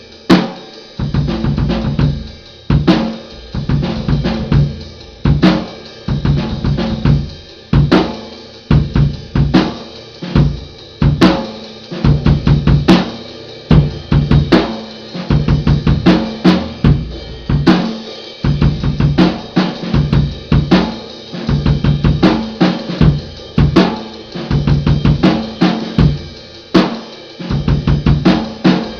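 A drum kit played solo: fast snare and bass drum patterns with tom fills, cymbal crashes and hi-hat, many strokes a second with loud accents every second or two.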